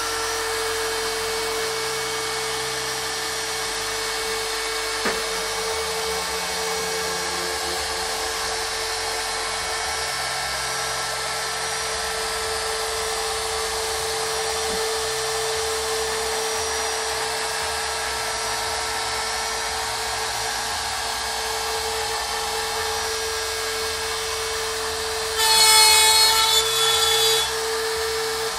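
Trim router on a WorkBee CNC machine running at full speed with a steady high whine, resuming a job after a power outage. Near the end it grows louder and rougher for about two seconds.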